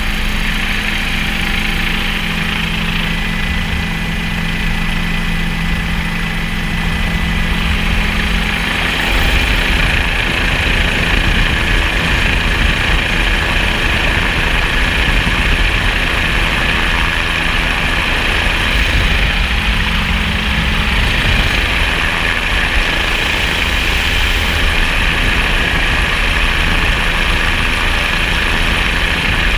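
An engine running steadily: a low hum under a broad hiss. The hiss gets louder about nine seconds in.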